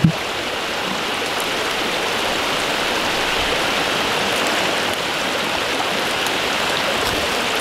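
Creek water rushing steadily over a rocky riffle, an even hiss of flowing water.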